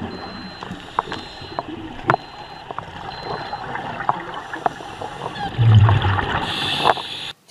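Underwater sound of a scuba diver: air bubbles from the regulator gurgling, with scattered sharp clicks and a brief low rumble about six seconds in.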